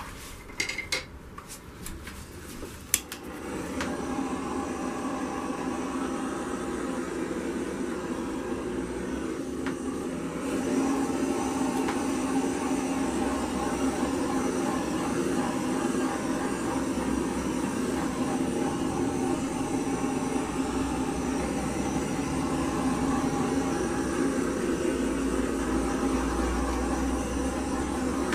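A few handling clicks, then a handheld heat gun starts blowing steadily over the wet acrylic paint to pop cells; about ten seconds in it steps up louder.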